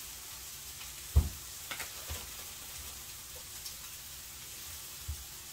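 Chicken frying in a pan on the stove, a steady sizzle, with a loud knock about a second in and a few lighter knocks after it.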